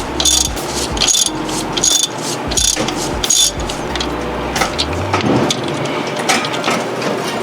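Hand ratchet clicking as cylinder head bolts are run in by hand, in rhythmic back-strokes about every 0.8 s, turning into quicker, uneven clicking about halfway through.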